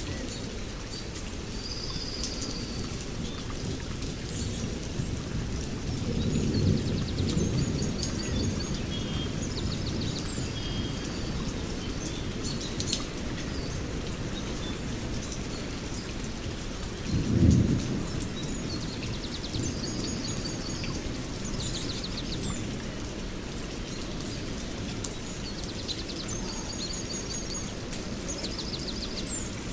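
Steady rain with two low rumbles of thunder: a longer one about six seconds in and a shorter, louder one about two-thirds of the way through. Birds chirp in short trills now and then.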